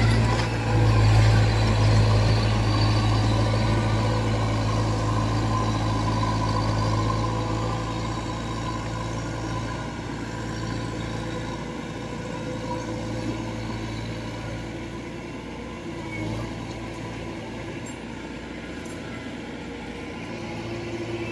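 Kubota DC-93 tracked combine harvester's diesel engine running steadily as the machine drives off, the hum slowly fading as it moves away.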